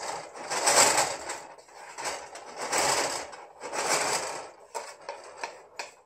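A wooden spatula scraping and stirring wet vermicelli noodles in a nonstick frying pan: three long scraping strokes, then a few lighter ones near the end. The noodles are sticking to the bottom of the pan.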